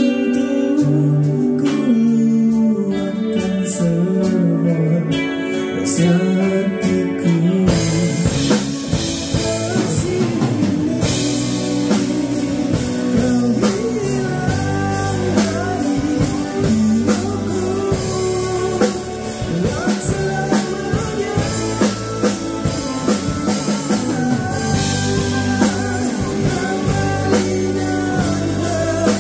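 A song with a singer, guitar and drum kit: held notes at first, then the drums and full band come in about eight seconds in and keep a steady beat.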